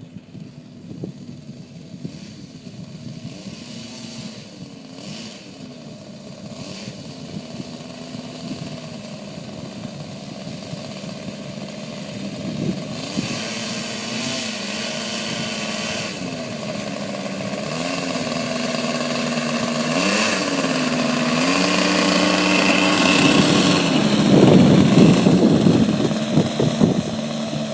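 Twin engines of a radio-controlled P-38 Lightning model running, their pitch rising and falling with repeated throttle changes. The sound grows steadily louder as the plane comes nearer, loudest a few seconds before the end.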